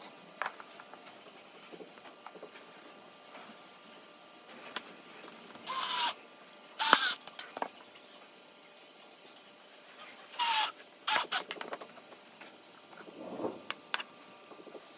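Cordless drill driving small screws into a pine board: a few short bursts of the motor, each winding down as it stops, around six, seven and ten seconds in, with clicks and knocks of the parts being handled between them.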